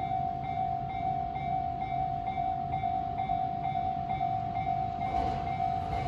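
Japanese level-crossing warning bell ringing, a steady electronic ding repeating about twice a second. Near the end the rumble of an approaching JR Saikyo Line E233-series train starts to rise under it.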